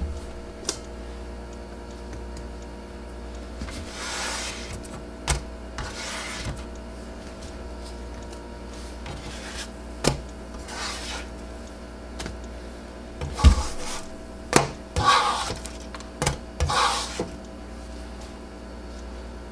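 Spatula scraping across the nonstick surface of a Presto electric griddle as pancakes are slid off it, about six scrapes with a few sharp taps in between, over a steady low hum.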